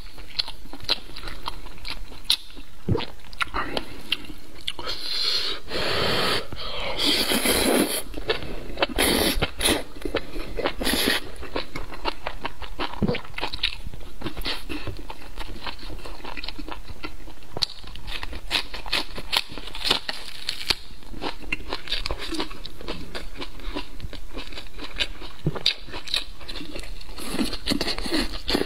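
Close-miked eating sounds of spicy noodles: wet chewing, crunches and mouth smacks, with a few longer, louder slurps partway through.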